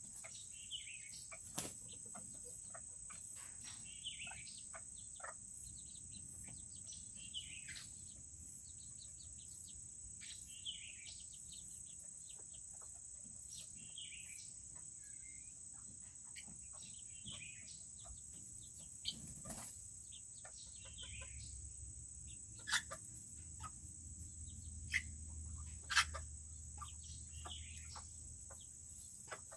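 Serama chickens calling: a short falling call repeated about every three seconds, with scattered sharp taps and a steady high insect-like whine behind.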